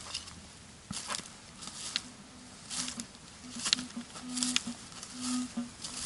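Footsteps crunching through dry leaf litter, an irregular rustle about once or twice a second. From about halfway through come several short low beeps from a metal detector.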